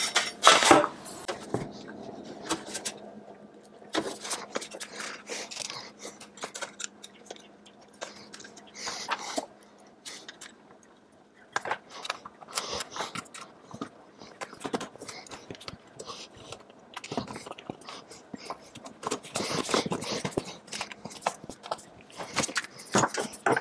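Hands assembling a metal clamp-on desk pegboard: irregular clicks, knocks and scrapes as the legs are fitted with screws, washers and the supplied tool, over a faint steady hum.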